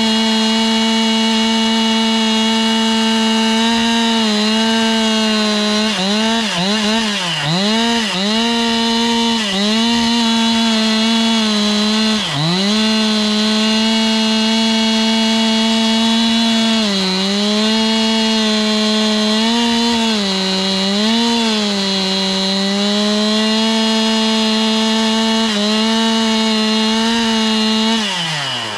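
Two-stroke chainsaw running at high revs while milling through wood. Its steady whine sags briefly several times as the chain bogs under load in the cut, with a deeper drop near the end.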